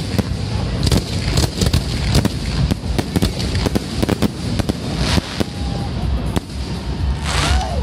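Aerial fireworks shells bursting in quick succession: a rapid string of sharp bangs and crackles. The bangs thin out after about five seconds.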